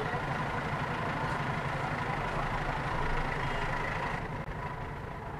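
Engine idling and low traffic hum heard from inside a small car's cabin in a street jam, with the motorbikes and autorickshaws around it. The noise eases a little about four seconds in.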